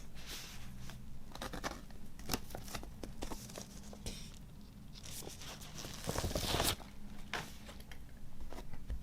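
Paper and plastic packaging of a vinyl LP being handled: rustling and crinkling with many small clicks and taps, and a longer, louder rustle about six seconds in.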